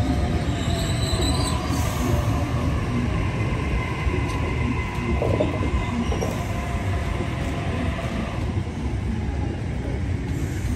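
Passenger train running along the platform, a steady rumble of wheels on rails. Thin squealing tones from the wheels ring over it in the first half and fade toward the end.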